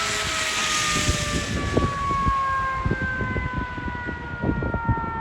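Federal Q mechanical siren on a fire engine winding down, its pitch falling slowly and steadily. Gusts of wind buffet the microphone, and a loud rushing hiss fades out about two and a half seconds in.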